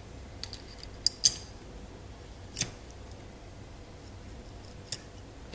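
A few short, sharp clicks and taps of small helicopter frame parts, screws and washers being handled and fitted by hand, the loudest about a second in.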